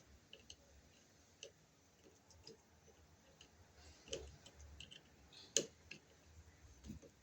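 Faint, scattered clicks and taps of hand tools on copper wire at a wall receptacle, as the ground wire is closed around its green ground screw, with two louder clicks about four and five and a half seconds in.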